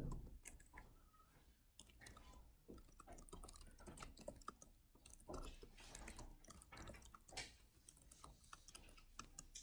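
Faint, scattered clicks of a computer keyboard being tapped, along with light rustling of paper sheets being handled.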